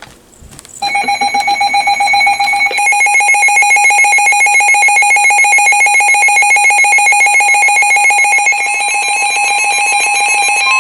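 Weather radio alert alarm: a loud electronic tone pulsing rapidly and evenly, starting about a second in and growing louder and fuller about three seconds in. It signals an incoming Emergency Alert System warning.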